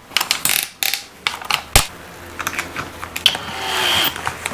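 Clicks, knocks and light metallic clatter of cordless hammer drills and a steel lag bolt being handled on a wooden beam, with one sharp knock a little under two seconds in. A short swelling noise near the end.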